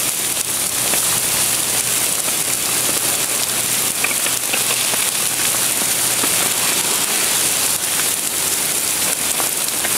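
Steady hiss of rain falling on wet pavement.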